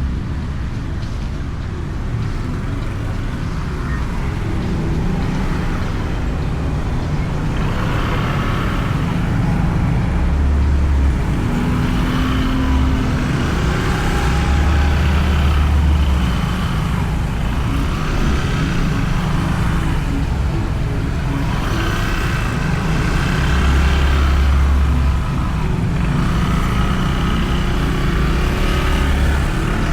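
Motorbike riding in traffic, heard through a microphone inside the rider's helmet: a steady rumble of wind and engine that grows louder for a second or two at a time and eases off again, with the sound of surrounding road traffic.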